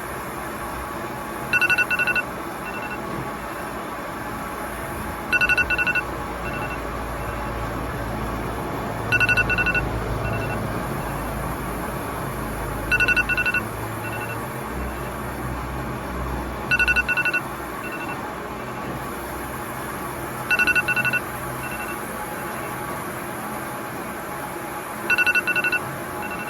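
Electronic telephone ringing: a short double ring with a buzzy warble, repeating seven times about every four seconds.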